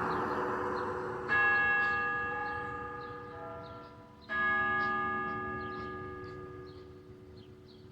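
Church bell striking the hour: two strokes about three seconds apart, each ringing out and fading slowly, over the dying ring of the stroke before.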